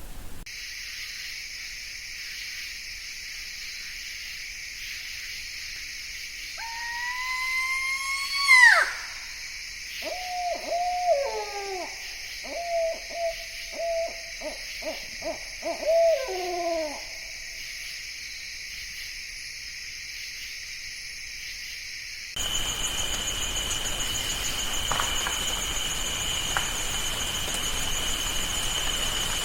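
Owl calling: a rising, wailing call that sweeps sharply upward, followed by a run of about ten short hoots with falling ends, over a steady high hiss. About two-thirds of the way through, the sound switches to a different steady high-pitched background with two sustained tones.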